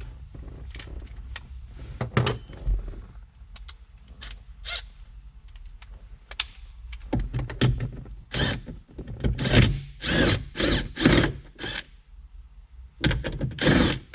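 Hand-tool work on a fastener: scattered clicks and knocks, then from about seven seconds in a loud run of squeaky strokes, roughly two a second.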